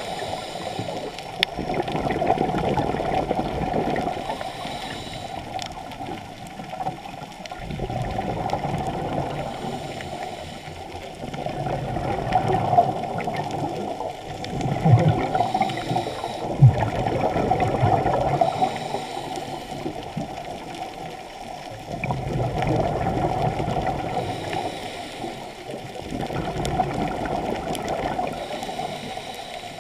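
A scuba diver's breathing through a regulator heard underwater: exhaled air bubbling out in swells every four to five seconds, with quieter stretches between breaths.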